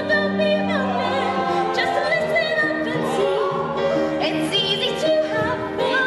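A song from a stage musical: a woman's singing voice over instrumental accompaniment, with long held notes and some vibrato.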